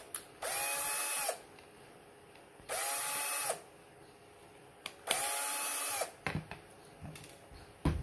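Electric screwdriver running in three short bursts, each just under a second, its motor whine rising briefly as it starts and then holding steady as it backs screws out of a plastic humidifier base. A short knock near the end.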